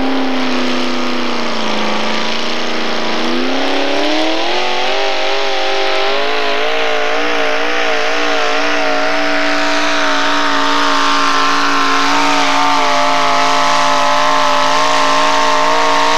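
Modified four-wheel-drive pulling truck's engine running at high revs under load as it drags a weight-transfer sled. The pitch sags, climbs again about three to four seconds in, wavers for a few seconds, then holds steady and high.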